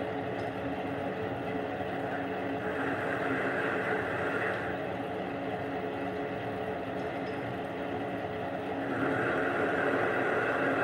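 Small bench metal lathe running with a steady motor hum. The cutting tool, fed by hand into the spinning steel workpiece, adds a hissing scrape twice: about three seconds in for two seconds, and again from about nine seconds in.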